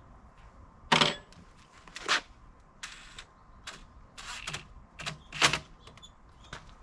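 Irregular sharp clicks and knocks of hand tools and small parts being handled, about eight in a few seconds, the loudest about a second in and near the end.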